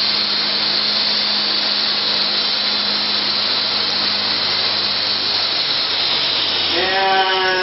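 Small electric RC helicopter's motors and main rotor running steadily at speed: a steady whirring hiss with a high whine.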